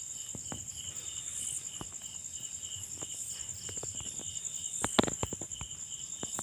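Chorus of night insects: a steady high pulsing trill and a lower, faster chirping go on together. Scattered clicks and taps sound over them, the loudest about five seconds in.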